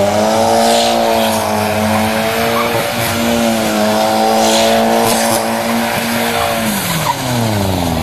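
A car engine held at high revs while the car slides on wet tarmac, a steady note that drops as the revs fall about seven seconds in. Short bursts of tyre noise from the wet surface come and go over it.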